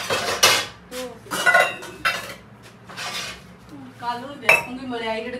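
Metal kitchen utensils, steel dishes and a brass basin, clattering and clinking as they are handled and set down, with one sharp ringing clang about four and a half seconds in.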